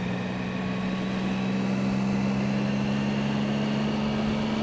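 2008 Triumph Speed Triple's 1050 cc three-cylinder engine running steadily under way, its note rising slowly, over a haze of wind and road noise.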